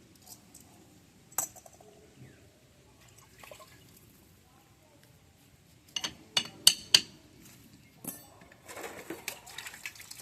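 Metal tools and steel tractor axle parts clinking as they are handled: one sharp clink about a second and a half in, a quick run of four or so metallic knocks around six seconds in, then a rattling scrape near the end.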